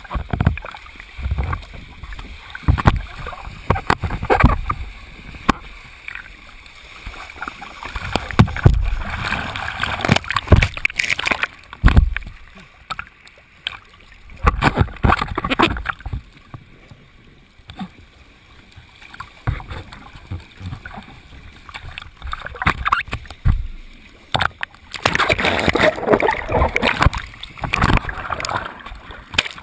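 Water splashing and sloshing in irregular bursts, with low thumps.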